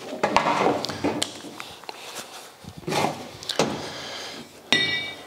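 Handling noise as a sheet-metal motorcycle fender panel is picked up and moved about on a metal workbench, with scrapes and light knocks, and a short metallic ring near the end.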